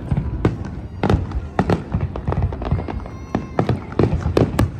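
Fireworks going off: a rapid, irregular string of bangs and crackling reports.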